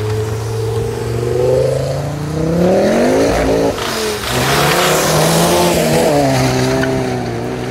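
Cars accelerating past one after another: one engine revs up, rising in pitch, and goes by close with a loud rush about three seconds in, then a second car's engine follows at a lower, steadier pitch.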